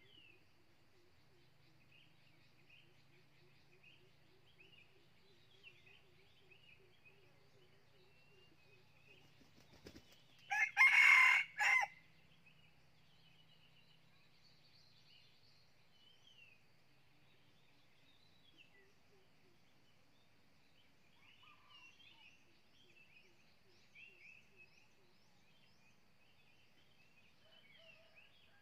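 Red junglefowl rooster crowing once, a short crow of about a second and a half, just after a brief wing flap. Faint small-bird chirps go on in the background.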